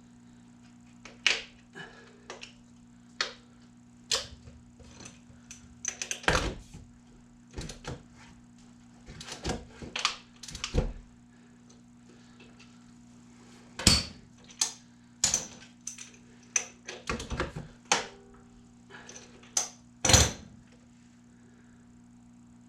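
Irregular metallic clicks and knocks of hand tools and parts being handled while a tight serpentine belt is worked onto the engine's pulleys, over a steady low hum.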